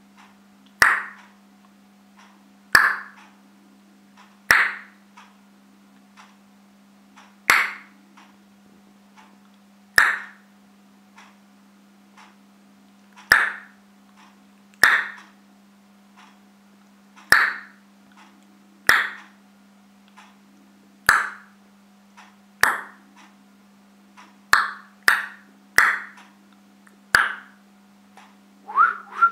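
Hand claps, about sixteen sharp single claps spaced a second or two apart, coming quicker near the end, clapped to trigger a clap switch. A steady low hum runs underneath.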